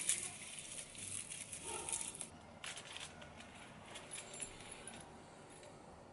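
Leaves and stems of a potted water pepper plant rustling and crackling as it is handled, busiest in the first two seconds or so and then quieter.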